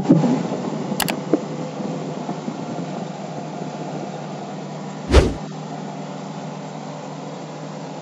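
Combine harvester running steadily, a low mechanical hum of engine and threshing machinery. A sharp click comes about a second in, and a loud thump about five seconds in.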